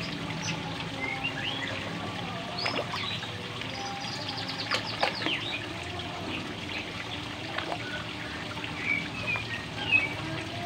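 Pond water trickling and splashing as a crowd of koi churn at the surface, with birds chirping now and then.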